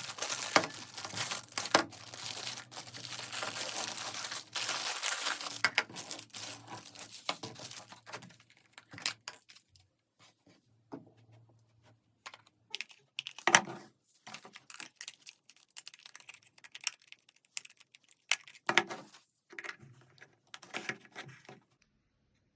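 Packaging torn open and crinkled for about the first eight seconds, followed by scattered clicks, taps and rustles of the contents being handled.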